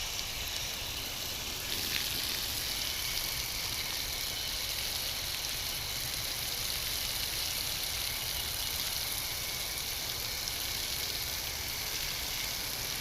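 Steady high hiss, even and unbroken, starting abruptly at the beginning.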